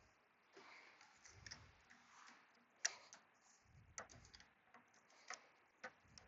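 Faint, irregular clicks and taps of hand tools working on the computer's upper mounting bolt, a few sharp ticks spread out, the loudest about three seconds in.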